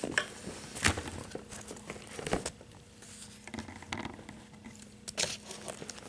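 Thin Bible paper rustling as a hand moves over the open pages, in short crinkles and light taps a few times, over a faint steady hum.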